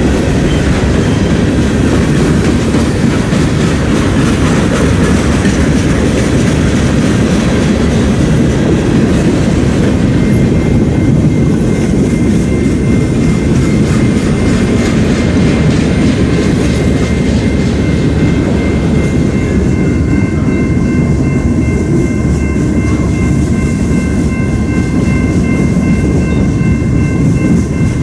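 Freight train passing close by: a loud, steady rumble of railcars and their wheels rolling over the rails. About ten seconds in a thin steady high tone joins, and about twenty seconds in it becomes several high tones together.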